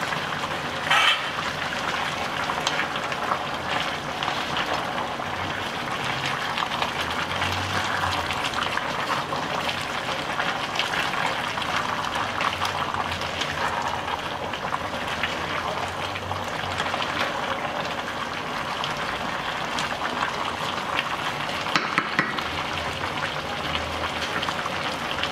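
Jackfruit and coconut-milk curry bubbling in a pot, a steady hiss of boiling liquid. It is stirred with a wooden spatula, and there are a couple of short knocks, about a second in and near the end.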